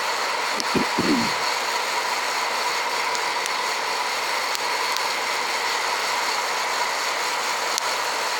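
Hot-air coffee roaster running with its chaff cover off: a steady rush of the fan and heater blowing the beans around the roasting chamber, part-way through the roast as the beans darken.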